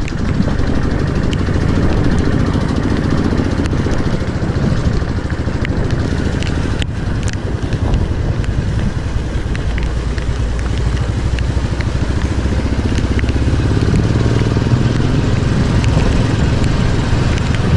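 Motorcycle riding over a rough, stony dirt mountain road: a loud, steady rumble of engine and road noise with scattered small clicks.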